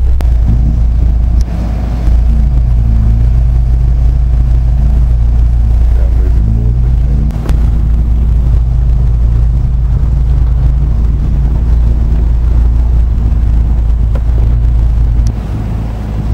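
4x4's engine heard from inside the cabin, labouring up a steep, rough track. The engine note rises and falls as the revs change, over a steady low rumble.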